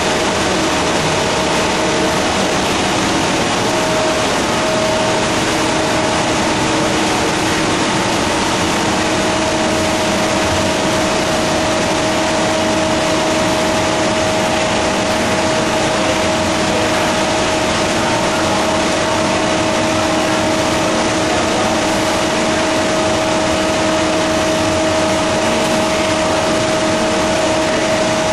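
Pilot-scale fourdrinier paper machine running, with the paper sheet winding onto the reel: a loud, steady machinery din with a constant hum-like tone through it.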